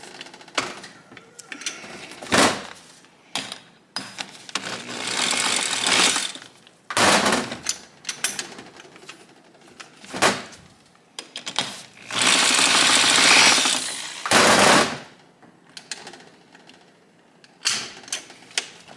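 Metallic clicks and clunks from the gearbox of a Honda SL125's 125 cc engine as its gears and shift mechanism are worked by hand, with several stretches of rapid rattling as the gears are turned. The gearbox shifts stiffly and is reluctant to go into third.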